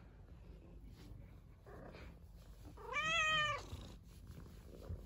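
Domestic cat purring softly, then giving one short meow about three seconds in that rises and falls in pitch.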